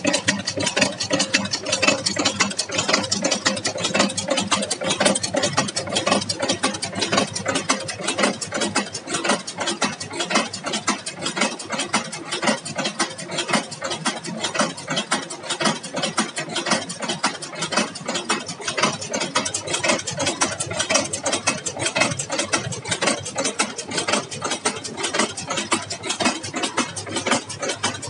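Automatic side anchor chain making machine running: its belt-driven flywheel and cam-worked forming tools make a rapid, steady metallic clatter.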